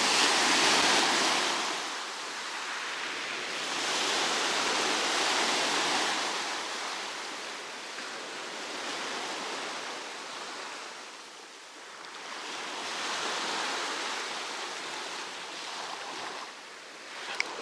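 Sea surf breaking and washing on a beach, the rush of water swelling and fading about every four to five seconds.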